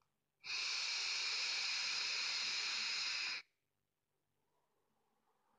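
A long draw on a Geekvape Ammit 25 single-coil rebuildable tank atomizer firing at 32 watts: a steady hiss of air pulled through the airflow slots over the coil. It starts sharply about half a second in and cuts off sharply about three seconds later.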